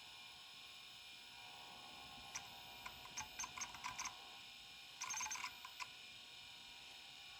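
Kalok KL3100 103 MB stepper-motor hard drive seeking: its stepper head actuator makes scattered groups of short, sharp clicks, beginning a couple of seconds in, with a dense chatter about five seconds in. Under the clicks is a steady, faint hum.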